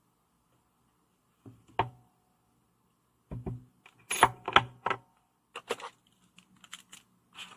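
Clicking and knocking of a metal flashlight body and its detached metal pocket clip as they are handled and set down on a wooden tabletop. A single knock comes near the start, then a quick run of louder taps about halfway through, then a few light ticks.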